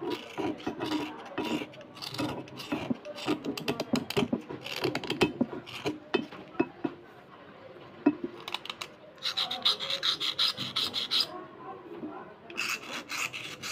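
Small metal knife blade scraping along slate pencils in quick, repeated rasping strokes. The strokes thin out about seven seconds in, then return in two denser, hissier runs near the end.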